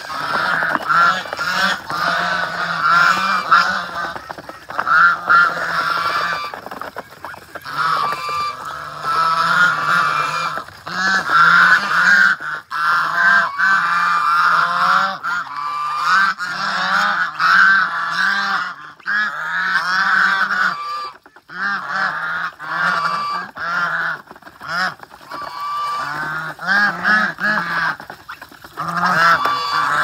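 A flock of domestic white geese honking over and over, many short calls overlapping one another, with a brief lull about two-thirds of the way through.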